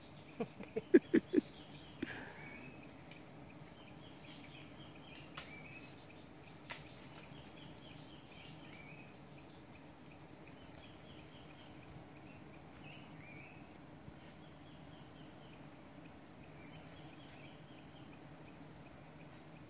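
Insects chirping in the forest: a steady high trill with short repeated chirp phrases just below it. In the first second and a half, five short, loud pitched calls come in quick succession.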